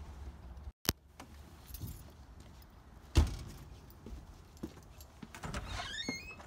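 A single sharp thump about three seconds in, then keys jangling near the end.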